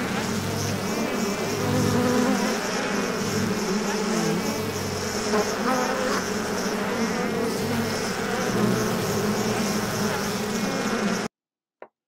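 Sound-effect recording of a bee buzzing: a steady, dense drone that cuts off abruptly near the end.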